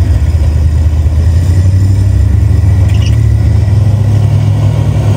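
Engine of a Toyota pickup rock crawler running under load as it crawls up a rock ledge, a steady low note that rises slightly in pitch about four seconds in.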